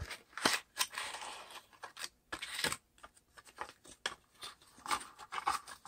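A small cardboard box being opened by hand: the sleeve scrapes and slides off the inner box, with paper rustling and a scatter of light clicks and taps as the packaging is handled.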